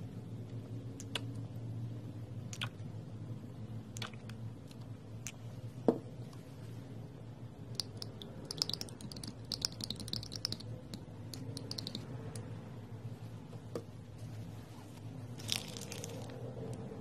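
Metal spoon working thick paint in a small glass cup: soft squishing and scraping, with scattered light clicks of the spoon against the glass, over a low steady hum. The scraping is densest about halfway through and again near the end.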